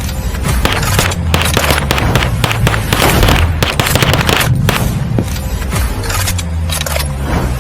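Rapid gunshots, several a second in quick strings, over background music with a heavy bass line.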